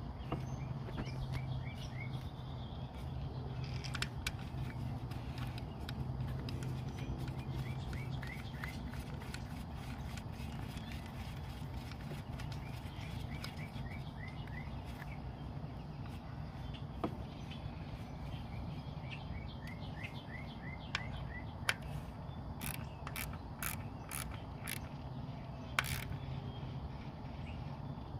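Scattered clicks and knocks of a new ignition coil being pushed into its spark-plug well and its hold-down bolt turned with a socket ratchet, the clicks coming thicker near the end. Behind them is a steady low hum, and a bird chirps in short runs of notes.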